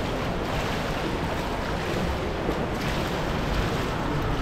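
Steady rushing noise of swimming-pool water, an even hiss and rumble with no distinct splashes or other events.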